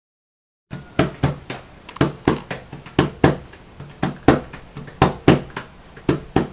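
A rhythmic beat of sharp percussive hits, about three a second in a repeating pattern, starting abruptly after silence a little under a second in.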